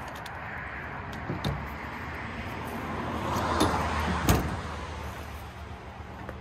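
Handling noise from an Echo PAS split-shaft pole saw being worked on at a pickup's tailgate: scraping and knocks, rising to a sharp click about four seconds in, over a low steady hum.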